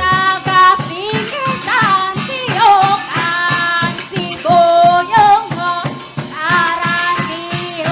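Dance-performance music: singing voices over a quick, steady percussion beat.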